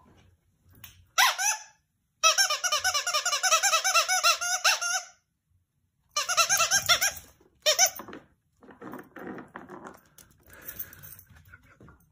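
A squeaky dog toy squeaked rapidly over and over in quick runs, the longest lasting about three seconds, with short pauses between. Fainter scuffling follows near the end.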